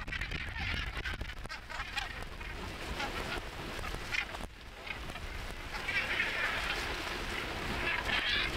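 A feeding flock of northern gannets with gulls among them, many birds calling at once in harsh, overlapping croaks. The calling grows thickest in the last few seconds, over a low steady rumble.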